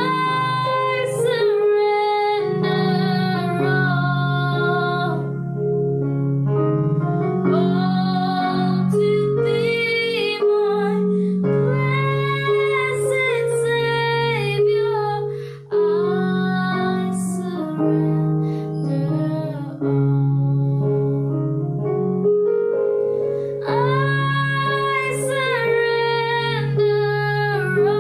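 A high solo voice singing a slow worship song in long phrases over sustained keyboard chords.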